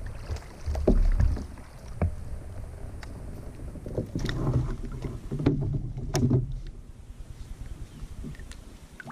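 Low rumble of wind on the microphone aboard a fishing kayak, with scattered sharp clicks and knocks of fishing gear and kayak fittings being handled, busiest a few seconds in.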